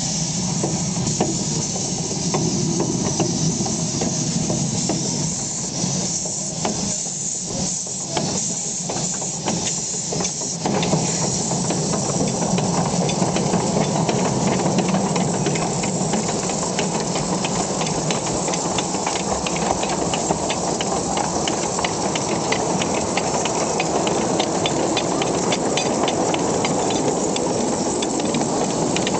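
Miniature steam locomotive hissing steam. About eleven seconds in it gets louder, and a fast, regular ticking runs on as the engine moves along the track.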